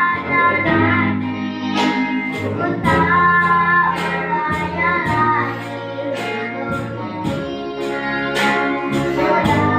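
Background music: a song with a high sung melody over plucked guitar, bass and a steady beat.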